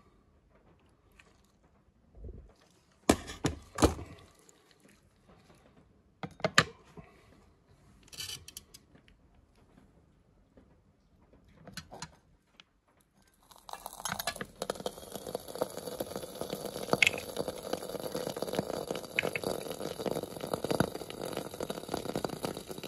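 A few sharp clinks and taps of glass and metal, then, from a little past halfway, a steady sizzle as raw egg fries on contact with the red-hot moai figure in the frying pan.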